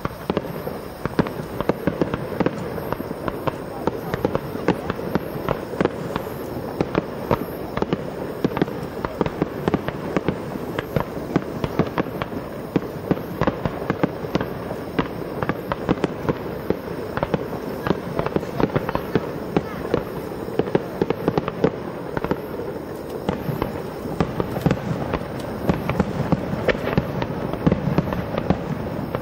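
Starmine fireworks display: shells launching and bursting in a continuous rapid barrage, several bangs a second over a steady rumble.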